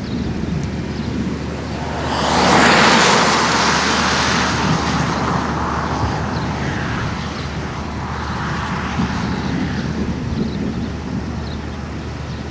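Outdoor storm ambience: a steady low rumble, with a loud rushing swell about two seconds in that fades away over the next few seconds.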